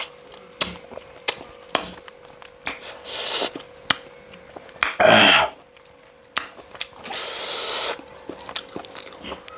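Close-miked eating: sharp mouth clicks and chewing, with loud slurps about a third of the way in, just past halfway (the loudest) and again near three-quarters. A faint steady hum runs underneath.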